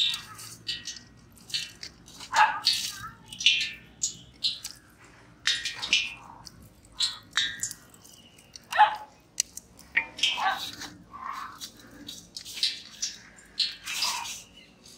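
Hands squelching marinated whole chickens and pressing them into a dry crumb coating in an aluminium bowl: a run of short wet squishes and crunches, about one or two a second.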